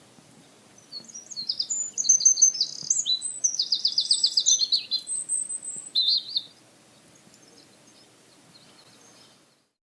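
Bird-chirping sound effect: a small bird's high chirps and a quick trill, starting about a second in and stopping after about five and a half seconds.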